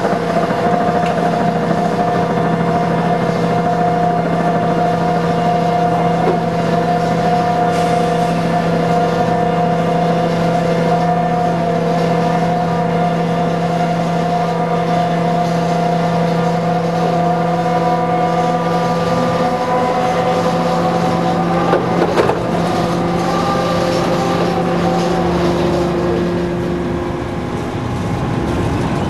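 Roller coaster chain lift running with a steady mechanical drone as the train is hauled up the lift hill. Near the end the drone fades and the train rumbles along the track.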